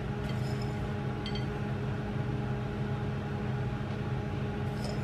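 Steady low hum made of several fixed tones, with a few faint light clicks about a third of a second and a second and a quarter in, and again near the end.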